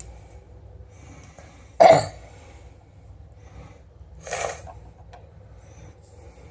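A person coughing once, sharp and loud, about two seconds in, followed by a softer, breathy sound about two and a half seconds later.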